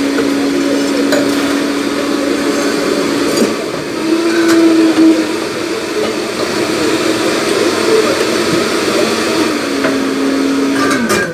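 Bar blender running steadily with a motor hum. Its pitch rises briefly about four seconds in, then it winds down and stops near the end.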